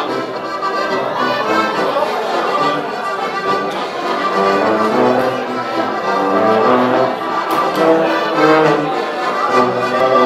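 Alpine folk music played live on a diatonic button accordion (Steirische Harmonika) with a rotary-valve tuba carrying the bass line.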